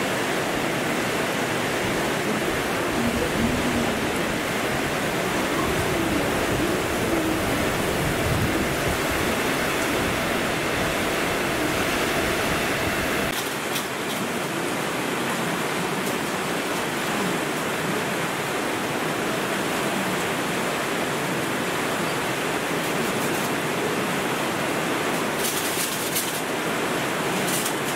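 Torrential downpour: heavy rain pouring down as a dense, steady roar. A deep low rumble under it drops away suddenly about halfway through, leaving the hiss of the rain.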